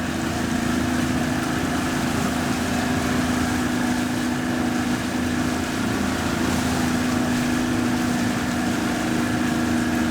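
Motorboat engine running steadily at a constant speed, with a steady low hum over a wash of wind and water noise.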